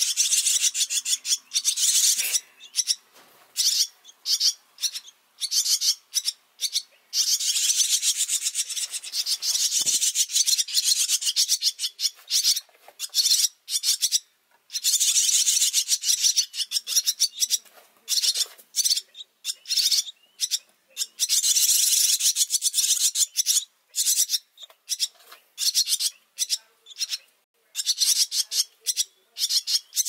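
Barn swallow fledglings begging for food: rapid, raspy, high-pitched chattering in repeated bursts with short pauses.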